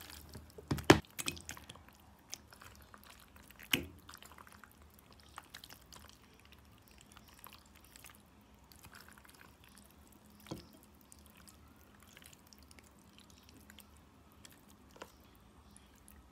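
Creamy pasta salad being stirred in a plastic tub and tipped out onto a ceramic plate: faint soft, wet sounds with a few sharp knocks, the loudest about a second in.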